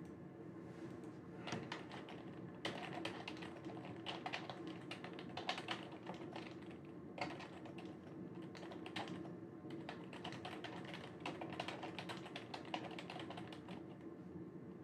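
Typing on a computer keyboard: a quick, irregular run of key clicks, with a steady low hum underneath.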